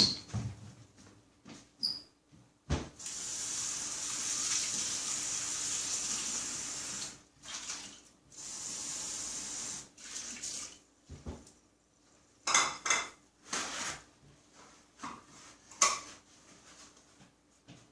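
A tap runs into a sink twice, about four seconds and then about two seconds, with a sharp knock just before. Near the end come scattered knocks and clinks of dishes being handled.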